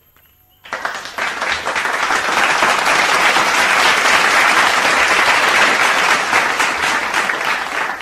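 Loud applause, many hands clapping, starting abruptly about a second in: an applause sound effect laid over the video.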